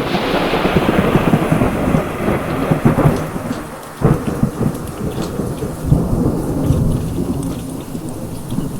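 Heavy rain with rolling thunder. A loud rumble at the start dies away, then a sharp new thunderclap breaks about four seconds in and rumbles on, with the rain pattering throughout.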